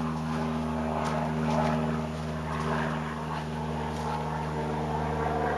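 Clothes dryer exhaust running through a rooftop vent on its first run after cleaning: a steady motor hum with a rush of air and a few faint ticks.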